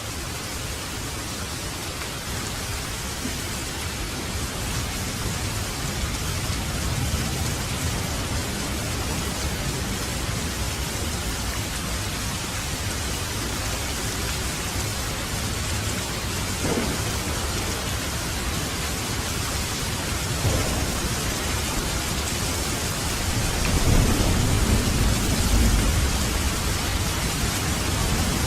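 Steady rain falling with thunder rumbling low underneath, the rumble swelling to its loudest near the end.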